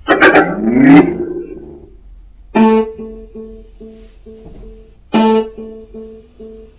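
Small portable Bluetooth speaker, just repaired, playing a short sweeping jingle and then guitar music: two loud chords about two and a half seconds apart, each followed by evenly repeated plucked notes. The speaker is working again.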